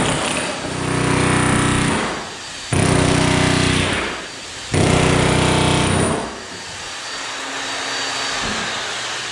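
Electric demolition hammer with a chisel bit hammering in three runs of about a second and a half each, prying red oak strip flooring up off the plank subfloor. After the third run a quieter steady hum carries on.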